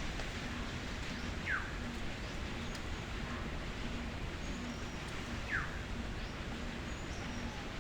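A bird giving two short descending whistled calls, about four seconds apart, over a steady background hiss.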